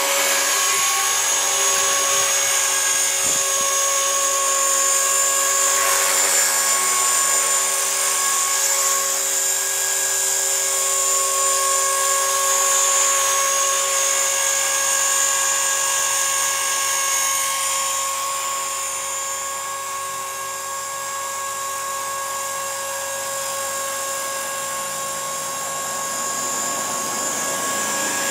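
EXI 450 SE electric RC helicopter hovering, its motor, gears and rotor giving a steady high-pitched whine made of several held tones. The sound grows a little quieter for a while in the second half.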